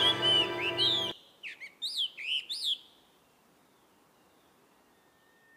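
Background music with bird chirps over it cuts off about a second in; a few short, high bird chirps follow, then near silence.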